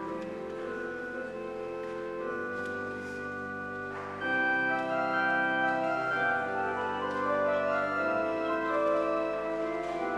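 Church organ playing slow, sustained chords, swelling louder about four seconds in.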